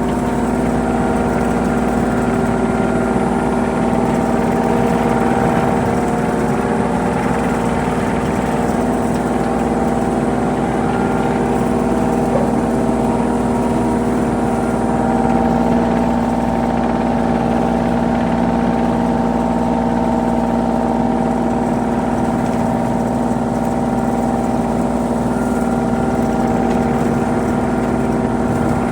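Excavator engine running steadily at an even speed, heard loud from the operator's seat.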